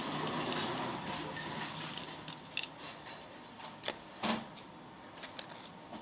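Glue and laundry detergent powder being stirred with a small stick in a plastic cup, a soft scraping noise that stops about two seconds in, followed by a few sharp clicks and knocks.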